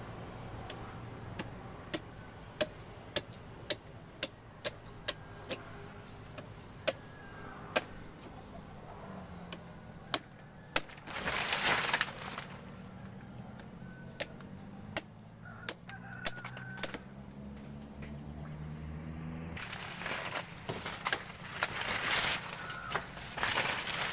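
Blade strokes cutting into the stalk of a sugar palm's fruit bunch: a steady run of sharp chops, about one or two a second, that stops near three-quarters of the way through. Two louder bursts of rustling palm fronds come around the middle and near the end.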